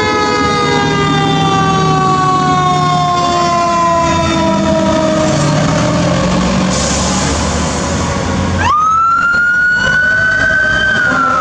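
Mechanical Q siren on a fire truck winding down, its pitch falling slowly, with truck engines rumbling underneath. About nine seconds in a siren rises sharply again, holds a high note and begins to fall near the end.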